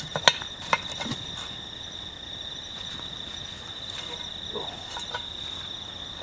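Two sharp metal clinks in the first second as the coal-covered lid of a cast-iron camp oven is gripped and lifted, then a few faint knocks. Crickets chirr steadily throughout.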